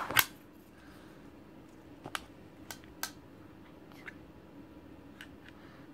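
Light clicks and taps of small plastic toy pieces being handled, the sharpest just after the start and a handful of fainter ones spread out after it, over a faint steady hum.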